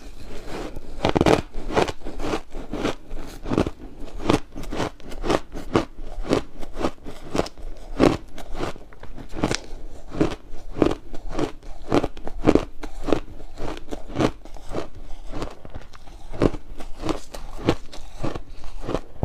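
Ice being bitten and chewed close to the microphone: a steady run of sharp, crackly crunches, about two to three a second.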